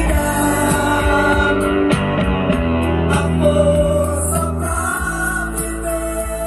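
Music with a sung melody over held bass notes.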